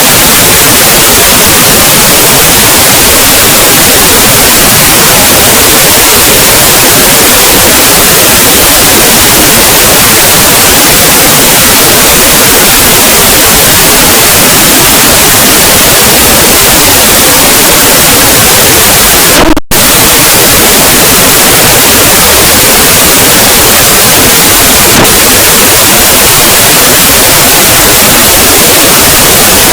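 Very loud, distorted static-like noise spread evenly across all pitches and clipped at full level, with a momentary dropout about twenty seconds in.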